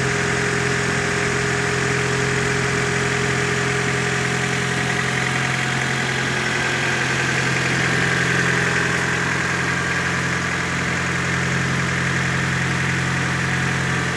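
Freshly rebuilt Honda Civic 1.5 16-valve four-cylinder engine idling steadily and evenly, running trouble-free after its rebuild.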